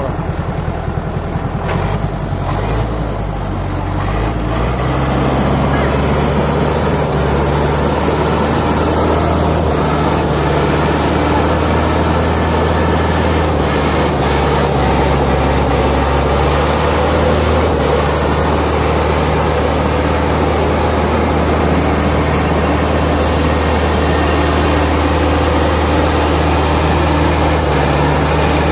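HMT 5911 tractor's diesel engine labouring under load as it pulls a trolley stacked high with sugarcane. The engine note rises and grows louder about four to five seconds in, then holds a steady drone.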